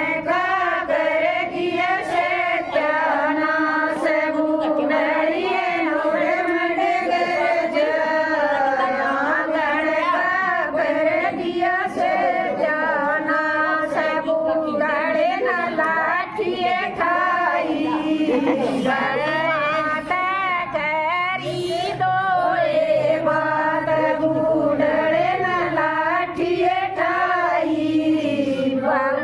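Female singing of a bhajan, a Hindu devotional song, with long wavering held notes.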